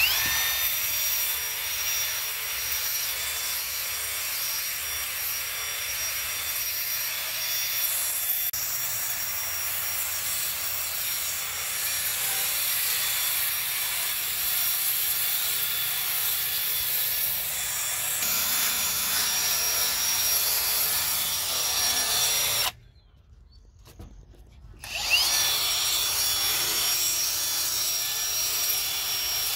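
Cordless drill running at a steady high whine, spinning a small round brush attachment that scrubs across wooden deck boards to sand off the weathered surface. It stops for about two seconds near the end, then spins back up with a rising whine.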